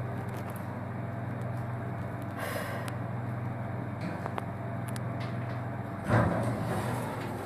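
A steady low mechanical hum, like a running motor, that stops about six seconds in, where a louder noisy scuffle with a knock takes over.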